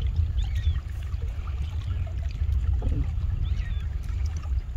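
Wind buffeting the microphone: a steady, uneven low rumble, with a few faint high chirps over it.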